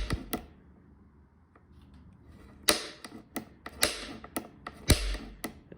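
Centre punch being struck against the end of a broken bolt to mark a spot for drilling: a couple of sharp metallic knocks, a quiet pause, then a run of about eight sharp strikes, some with a brief ring.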